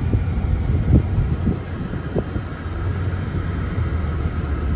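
Steady low rumble of road and engine noise inside a moving Mercedes-Benz car's cabin, with a few faint knocks about one to two seconds in.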